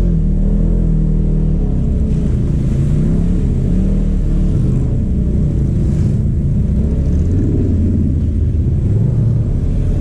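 Polaris RZR 1000 side-by-side's twin-cylinder engine running as it drives, its pitch rising and falling with the throttle.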